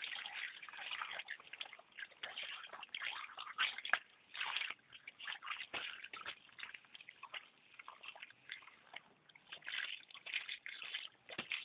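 Water sloshing, splashing and dripping in irregular bursts as fish are handled and rinsed during cleaning.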